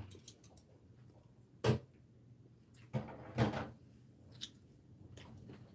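A handful of sharp, separate clicks and knocks of chopsticks against ceramic dishes during eating, the loudest about a second and a half in.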